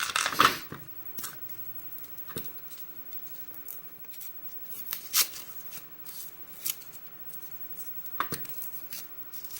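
A dull knife blade scratching and cutting at the tape wrapped around a key, in short scattered scrapes and sharper snicks.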